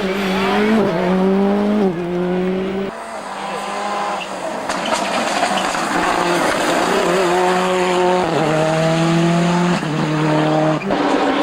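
Toyota Corolla WRC's turbocharged 3S-GTE four-cylinder engine revving hard at full throttle, its pitch stepping abruptly several times with quick gear changes. There is a brief quieter dip a few seconds in before it builds again.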